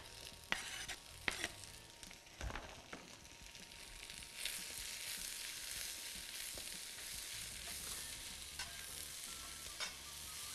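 Vegetables stir-frying in a hot pan: chopped chayote is dropped in with a few knocks of the spatula on the pan, then a steady sizzle takes over from about four seconds in, with the odd tap of the spatula near the end.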